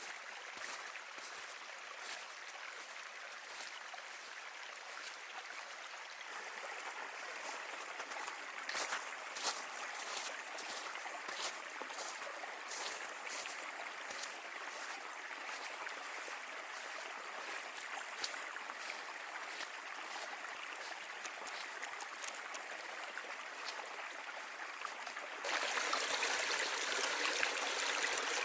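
Stream water flowing and trickling, a steady rush with many small splashes and drips; it grows abruptly louder near the end.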